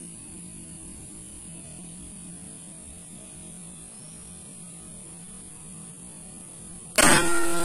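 Steady low electrical hum, then about 7 seconds in a single air-rifle shot: one sharp crack followed by a brief ringing tail that fades.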